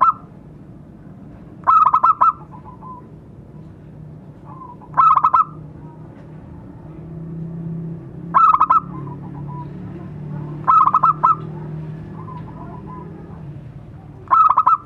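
Zebra dove (perkutut) cooing: five short bursts of rapid staccato notes, one every three to four seconds.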